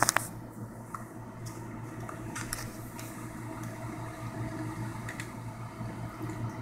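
Steady low hum of an ultrasound machine's cooling fan in a small exam room, with a quick run of sharp clicks right at the start and a couple of fainter clicks later.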